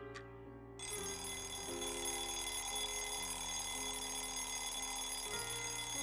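Alarm clock bell ringing continuously, starting about a second in, over soft sustained music.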